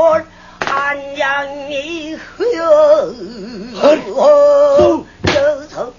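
Pansori singing: one voice holding long notes with a wide, wavering vibrato, with a few sharp strokes on the buk barrel drum between phrases.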